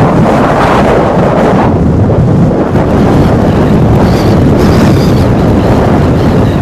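Strong wind buffeting the microphone: loud, steady, low rumbling wind noise.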